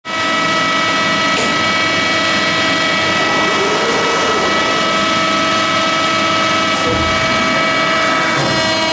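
A 500-ton CNC press brake idling with its hydraulics running: a loud, steady whine made of several pitches over a low rumble. A click comes about seven seconds in, with a low thump just after.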